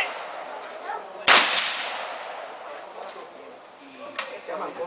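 A single gunshot about a second in, its report trailing off slowly over a couple of seconds, with a fainter sharp crack near the end.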